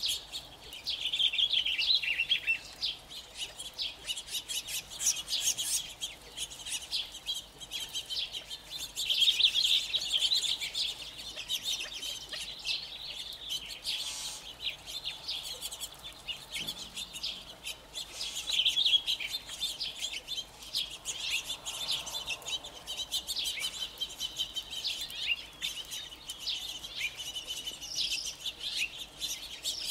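Continuous dense chirping and calling from a feeding flock of California quail, with small songbirds mixed in. The chirping comes in louder spells and is interspersed with soft clucking notes.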